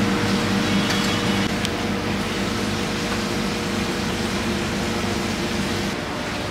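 Steady hum and hiss of kitchen machinery, with a few faint clicks about a second in; the hum eases slightly near the end.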